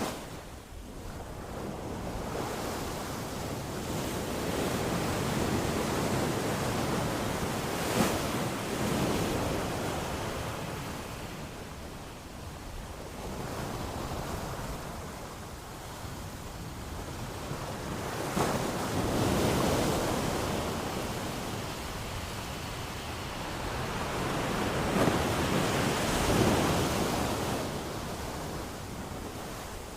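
Ocean waves surging and washing ashore, a steady rushing surf that swells and fades, with three bigger surges about ten seconds apart.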